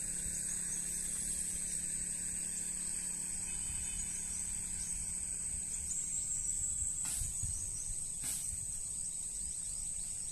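Steady high-pitched drone of insects in tropical undergrowth, with low rustling and rumble beneath and two short sharp clicks about 7 and 8 seconds in.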